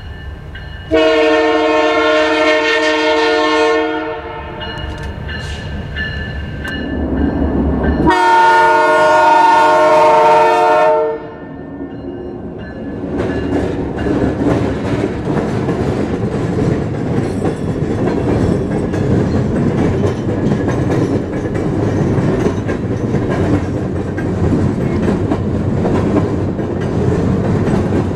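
Canadian Pacific Holiday Train locomotive sounding its air horn as a chord in two long blasts of about three seconds each, one about a second in and one about eight seconds in, warning for the grade crossing. From about thirteen seconds in, the train's cars roll past with a steady rumble and clatter of wheels on rail.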